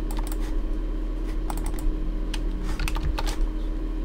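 Irregular clicking of computer keys over a steady low electrical hum.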